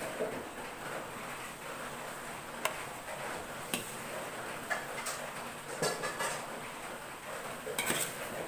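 A metal spoon clicking and clinking now and then against a pan and bowl as cooked vegetables are served out, a few sharp taps spread through, over a steady hiss.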